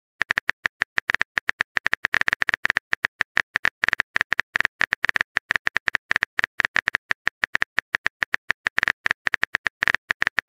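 Rapid keyboard typing clicks from a texting app, about eight to ten short high ticks a second with a few brief pauses, as a message is typed out letter by letter.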